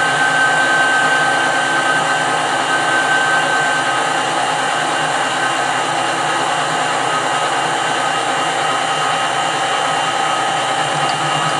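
Metal lathe running steadily under power feed, taking a light cut: a steady motor and gear whine with several tones over a hiss. The highest tone drops out about four seconds in.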